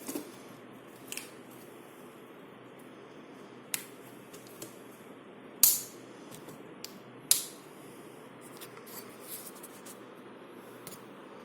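Steady rain falling, with scattered sharp taps and clicks over it, two of them much louder, about halfway through and again a couple of seconds later.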